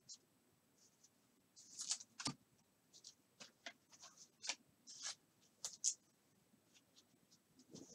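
Faint, scattered swishes and small clicks of trading cards and card packaging being handled, with one soft knock a little over two seconds in.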